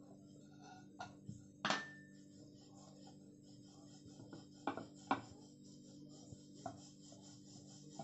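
Wooden rolling pin rolling out chapati dough on a stone rolling board, with a handful of sharp knocks as the pin strikes the stone; the loudest comes a bit under two seconds in, and two more come close together about five seconds in. A steady low hum runs underneath.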